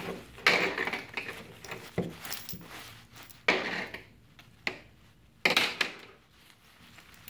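Hammock fabric rustling and crinkling in about five short bursts as it is bunched in the hands and a cord is drawn through its gathered end.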